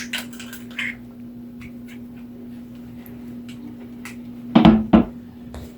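Cage accessories being handled and set in place: scattered small clicks and rustles, with two heavier knocks in quick succession about four and a half seconds in, over a steady low hum.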